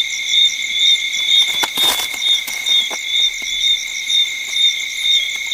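Night insects, crickets by their sound, chirping in a steady chorus that pulses about twice a second. A brief rustle cuts across it about two seconds in, followed by a few faint clicks.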